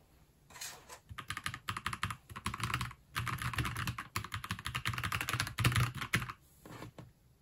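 Fast typing on a white NuPhy Halo75 mechanical keyboard: rapid runs of keystroke clacks, broken by a short pause about three seconds in, with a few stray keystrokes near the end.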